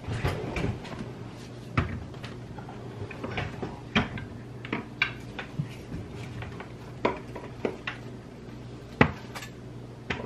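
Kitchen cupboards, drawers and utensils clicking, knocking and clattering at irregular moments as someone rummages for measuring cups, with the sharpest knock about nine seconds in. A steady low hum runs underneath.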